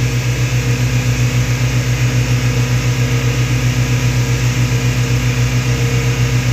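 Yamaha 242 jet boat's engines and jet drive running steadily underway: a loud, continuous low drone with a regular throb.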